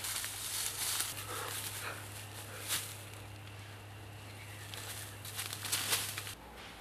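Footsteps crunching and rustling irregularly through dry fallen leaves, over a steady low hum that cuts off near the end.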